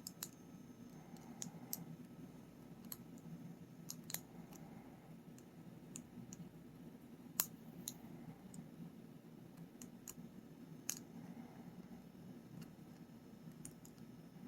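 Lock pick and tension wrench working the pin stack of a 7-pin padlock: small irregular metallic clicks as the pick lifts and releases pins, one sharper click about seven seconds in. A faint steady low hum sits underneath.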